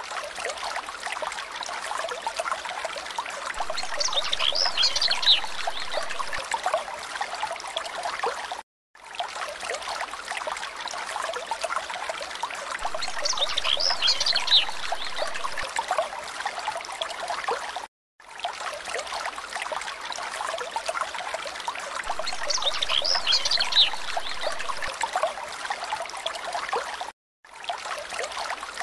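Looped nature-sound recording of trickling stream water with a cluster of short chirping calls. The loop repeats about every nine seconds, each time after a brief break in the sound.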